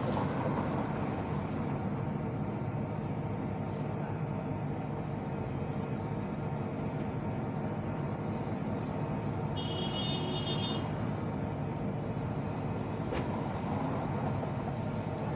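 Steady rumble of road traffic, with a brief high-pitched squeal about ten seconds in and a single sharp click near the end.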